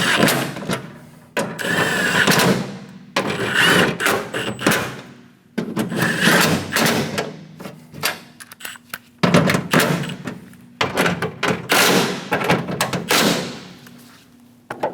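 Ratchet tool snugging down 10mm nuts: about six loud bursts of tool noise, each starting sharply and trailing off, with a few short clicks near the end.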